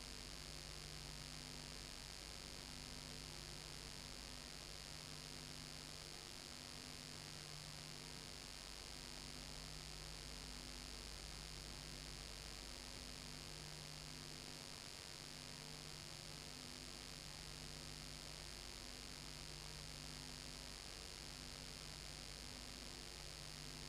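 Faint steady electrical hum and hiss from the transfer of a silent home movie, with a low tone that comes and goes about every two seconds; no sound from the filmed scene itself.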